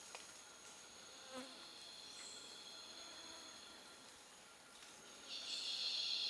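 Forest insects calling in steady, high-pitched tones, with a louder high insect drone coming in near the end.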